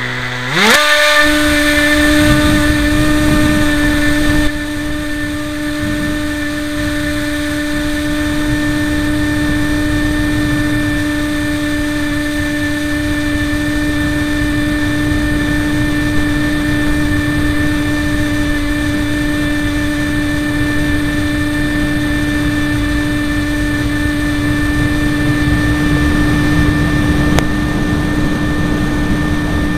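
Brushless electric motor and propeller of a Bixler RC plane spooling up in a quick rising whine at launch, then running at a steady high-pitched drone. Heard from a camera on board the plane, with wind rumbling over the microphone; the sound drops a little in loudness about four seconds in.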